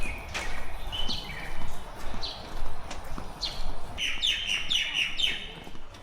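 Birds chirping in short, falling notes, with a quick run of chirps about four seconds in, over a low background rumble.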